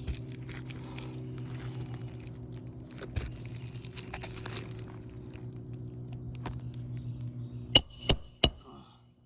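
Hammer driving roofing nails into asphalt shingles: three quick, ringing metal-on-metal strikes near the end. A steady low hum and a few faint taps run underneath until just before the strikes.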